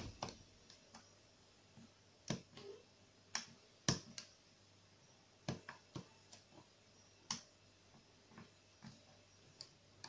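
Faint, irregular metallic clicks and ticks of a hook pick and tension wrench working in the keyway of an Arrone brass cylinder lock as its pins are picked, with the sharpest clicks about four seconds in and again after seven seconds.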